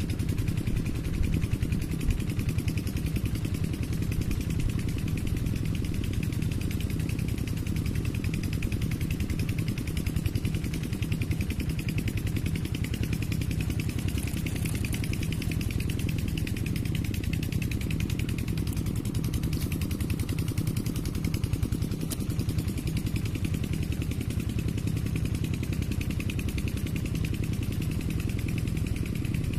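An engine running steadily, a low even hum that holds the same speed throughout.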